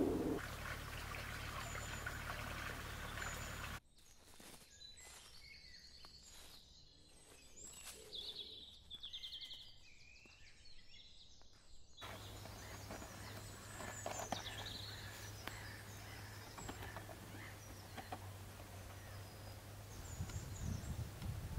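Outdoor ambience with small birds chirping and singing now and then over a low steady background rumble. The level drops suddenly about four seconds in, leaving fainter birdsong with a short trill, then comes back up for the rest.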